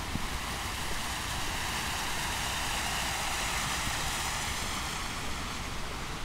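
A road vehicle passing at a distance: a tyre-and-engine hiss swells to a peak about three seconds in and then fades away.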